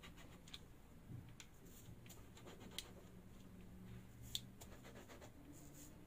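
Faint scratching and a few light ticks as a stainless steel cake ring is pressed into a chocolate sponge sheet to cut out rounds, the clearest tick about four seconds in.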